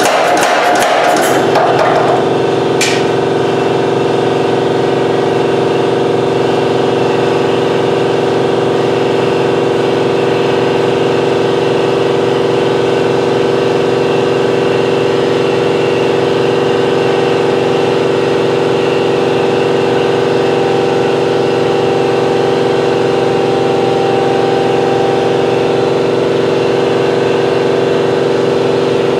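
Rapid blows of an MZ-75 pneumatic power hammer for about the first two seconds, then a single knock, then a shop air compressor running with a steady hum.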